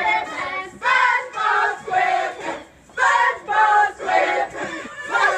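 A group of girls chanting together in short, loud phrases.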